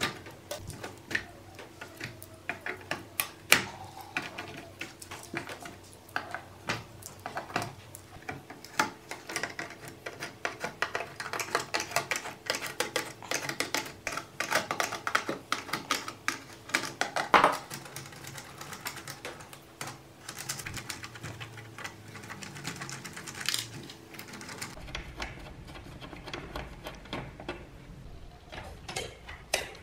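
Control knobs and parts of a stereo mixing amplifier being handled and removed by hand: a run of small, irregular clicks and taps on plastic and metal, with a couple of sharper knocks.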